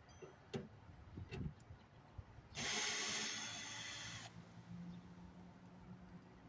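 A few clicks and knocks of handling, then a power tool running in one burst of just under two seconds, about halfway through, as the microwave is taken apart.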